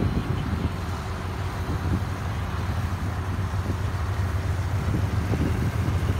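Steady low engine hum mixed with distant traffic noise.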